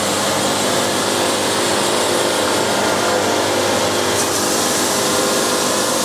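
Wood-Mizer LT70 sawmill's band blade sawing a board off a walnut cant: a steady sawing noise over the even running of the mill's diesel engine.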